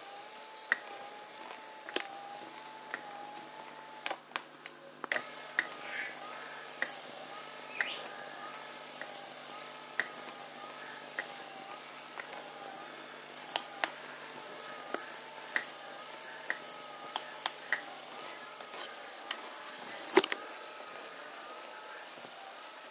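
Electric shiatsu massager's motor running its rotating massage nodes: a thin whine that wavers in pitch in a steady rhythm, about one and a half times a second. It stops briefly about four seconds in and starts again at a higher pitch, drops back near fifteen seconds, with irregular sharp clicks throughout, the loudest about twenty seconds in.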